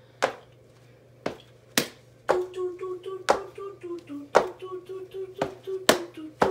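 Sharp hand snaps keeping a rough beat, about one a second, with a voice humming a tune over them from about two seconds in.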